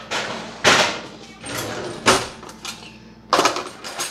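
Kitchen clatter: sharp knocks of a cutting board and other kitchen things being pulled out and handled. There are four hits over a few seconds, the last two close together.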